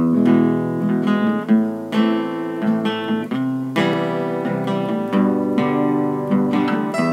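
Acoustic guitar playing the instrumental intro of a song, a new note or chord struck about every half second.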